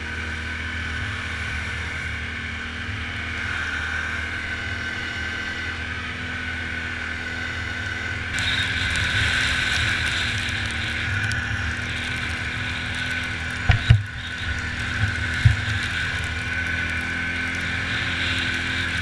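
Quad bike (ATV) engine running steadily as it is ridden. About eight seconds in the sound turns brighter and noisier. A few sharp knocks come about two-thirds of the way through.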